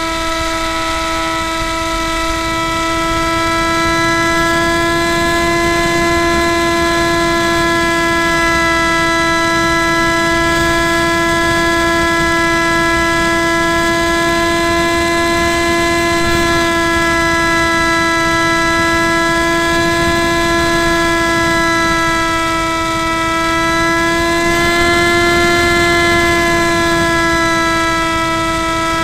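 Spyhawk RC plane's electric motor and propeller running at a steady high whine, heard close up through the keychain camera's microphone on the airframe, with a low wind rush underneath. The whine gets briefly louder and a little higher near the end as the throttle goes up.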